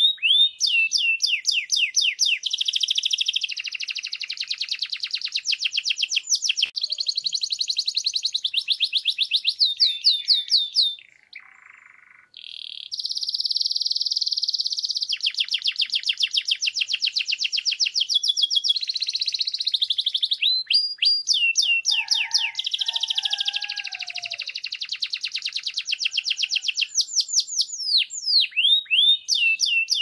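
Canary singing a long, fast song of high rapid trills and repeated chirps, with a short pause about eleven seconds in before the song resumes.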